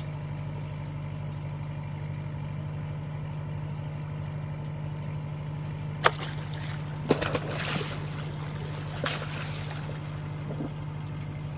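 A steady low engine hum, like a boat motor idling, runs throughout. Over it come sharp splashes as bait fish are thrown down and hit the water among the gropers: one about six seconds in, a burst of splashing about a second later, and another near nine seconds.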